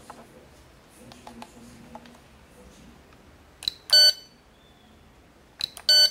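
Handheld cable tester giving two short electronic beeps about two seconds apart, each with a click just before it. Light clicks of plastic handling come earlier.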